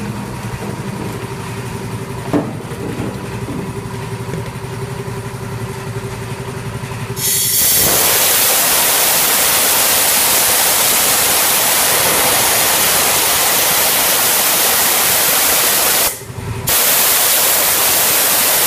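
A steady machine hum, then about seven seconds in a compressed-air blow gun starts a loud, steady hiss of air blasting into the bore of a repaired bellows-seal valve held in a tank of water. This is an underwater leak test of the valve's seal. The blast stops for a moment near the end and starts again.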